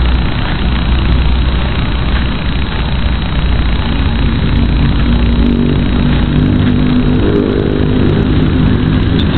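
Six-inch FPV quadcopter's four brushless motors (T-Motor Velox 2207 2550KV) spinning unducted props, a loud steady whirring while it hovers close by. About halfway through, a steady humming tone from the motors comes up over the whir.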